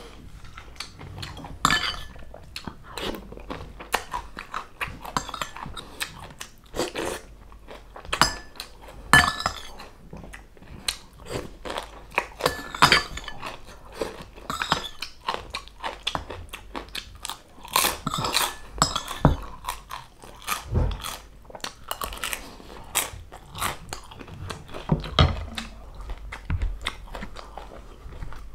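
Close-miked chewing of crispy fried food, with many sharp, irregular crunches.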